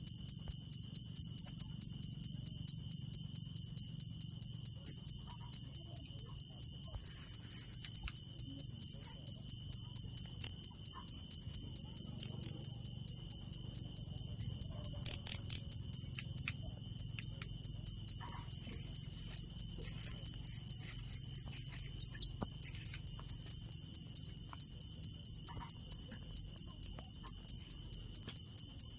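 Cricket chirping loudly in a fast, even rhythm of high-pitched pulses, with one short break a little past halfway; a fainter steady insect trill sounds underneath.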